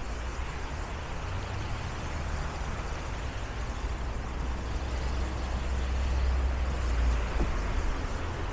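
Street traffic with a large vehicle's engine rumbling low, growing louder to a peak about six to seven seconds in and then easing off.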